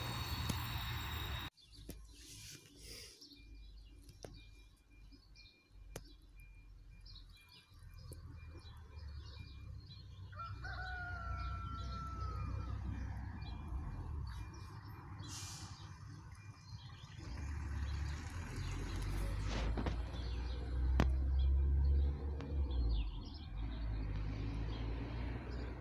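For the first second and a half the noise of the departing steam train, cut off abruptly; then birds chirping, with one short gliding whistled call, over a low gusty rumble of wind on the microphone that grows stronger in the second half.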